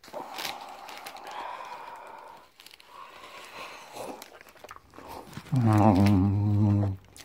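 Paper burger wrapper crinkling as a burger is handled and bitten into, with soft chewing. Near the end a man hums a long "mmm", the loudest sound.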